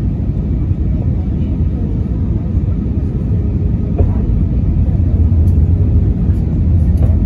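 Steady low rumble of an Airbus A320's engines and airflow heard inside the cabin on approach to landing, growing a little louder about halfway through, with a couple of faint clicks.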